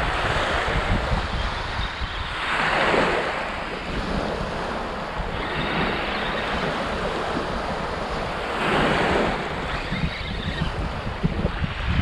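Small waves washing onto a pebble beach. Two larger washes swell up, about two and a half and nine seconds in, with wind buffeting the microphone.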